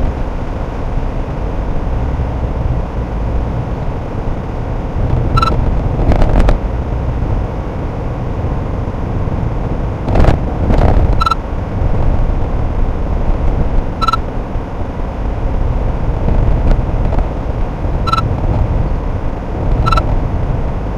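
Car driving on a narrow, rough mountain road, heard from inside: a steady low engine and road rumble, with thumps from bumps about six and ten seconds in. Several short high beeps come at uneven intervals.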